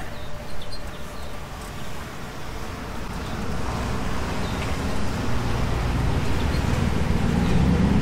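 A motor vehicle going by on the road, a rumble that swells steadily louder through the second half.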